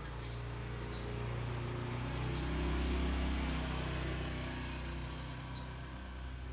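A low, steady motor hum that swells about three seconds in and then eases off, with a few faint clicks over it.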